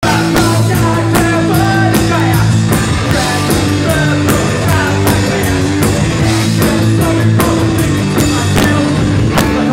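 Live punk rock band playing: a male lead singer on the microphone over electric guitar, bass guitar and drums keeping a steady beat.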